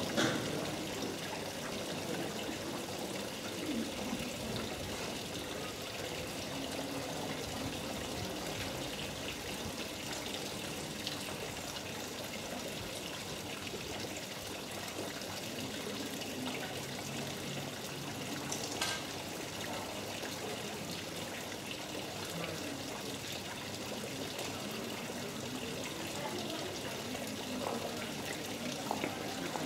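Water trickling steadily from the spouts of a small street fountain into its stone basin.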